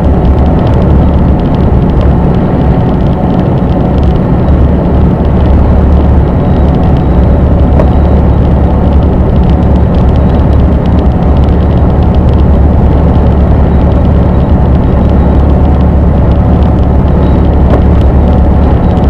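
Scania truck cruising at steady speed, a constant low drone of engine and tyre noise heard from inside the cab.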